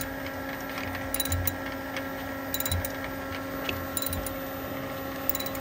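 Socket-wrench ratchet clicking in short bursts every second or so as a brass sensor is slowly unscrewed from a gas pool heater. A steady machine hum runs underneath.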